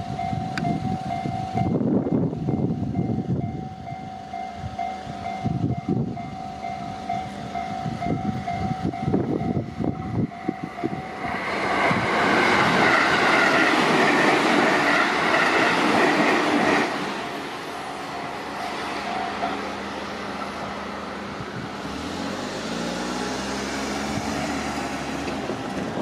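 Japanese level-crossing warning bell sounding its repeated electronic 'kan-kan' tone while a JR electric commuter train passes over the crossing. The train is loudest for about five seconds in the middle, the bell fades under it and stops, and a low whine rises in pitch near the end.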